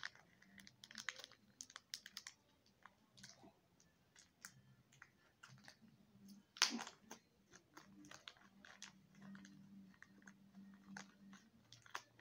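Quiet, scattered clicks and light rustling of small accessories and packaging being handled, with one louder click about six and a half seconds in.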